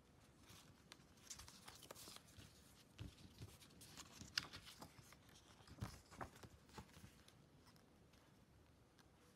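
Faint rustling and scattered light clicks of packaging being handled, dying away after about seven seconds.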